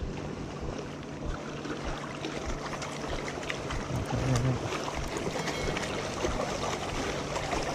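Steady wash of river water flowing and lapping against a rocky bank, with scattered faint clicks.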